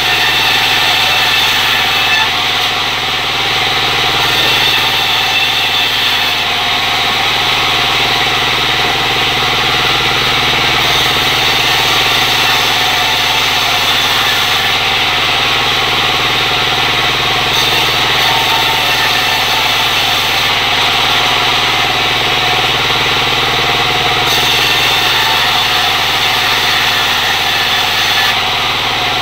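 Circular saw bench (serkel) running steadily while cutting sengon wood, a loud continuous machine drone.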